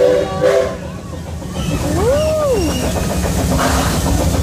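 Steady low rumble of an amusement-park ride running, with a short rising-then-falling tone about two seconds in.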